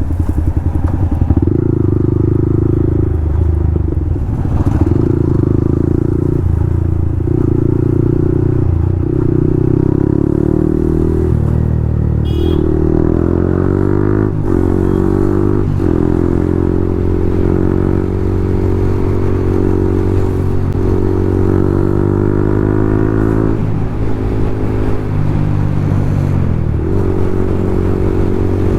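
Yamaha MT-15's single-cylinder engine running through an Akrapovic full-system aftermarket exhaust, a bit too loud. The note holds steady for long stretches, and its pitch falls and climbs again around the middle and near the end as the throttle and revs change.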